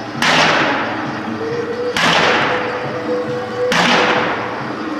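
Percussive music: three sharp crashing strikes, evenly spaced about one and three-quarter seconds apart, each hissing out over more than a second, with a steady held note sounding through the middle.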